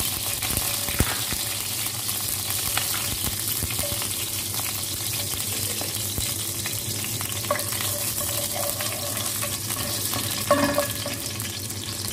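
Sliced garlic sizzling steadily in hot oil in a pot, with a sharp click about a second in.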